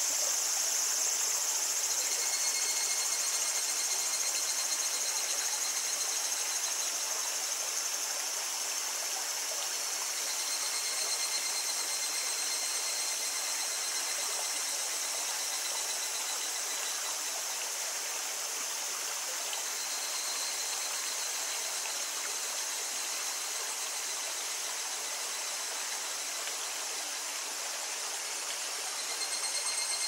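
A small stream babbles steadily, with cicadas singing over it in a steady high chorus. A pulsing cicada call fades in and out a few times.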